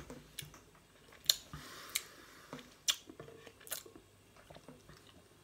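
Lip smacks and tongue clicks of a man tasting a mouthful of drink: about five sharp smacks spread over a few seconds, with a short breathy hiss after the loudest one.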